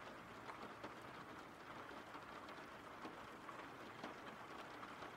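Faint steady rain, with scattered single drops ticking through it.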